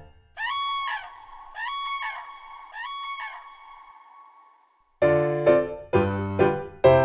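A crane calls three times, each call sweeping up into a held note, and the last one trails off. It is the cue to stop marching and stand like a crane. Bouncy piano music comes back in about five seconds in.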